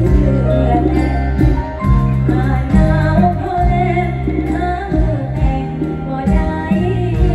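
Live band music amplified through a stage PA, with a singer's voice over heavy bass and drums.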